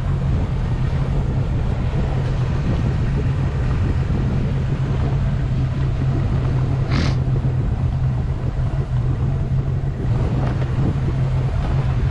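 A tow boat's engine running steadily at low speed with a deep, even hum, with wind on the microphone. A short hiss about seven seconds in.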